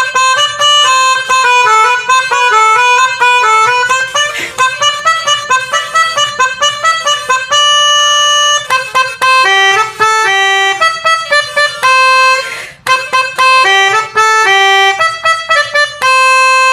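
Bus 'telolet basuri' melodic horn playing a quick tune, one reedy, harmonica-like note after another, several a second.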